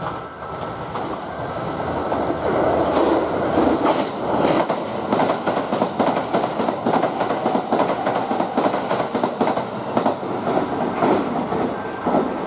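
Kintetsu 80000 series Hinotori limited express passing through the station without stopping. A rising rumble as it approaches, then a fast, dense clatter of wheels over the rail joints as the cars run past, fading away near the end.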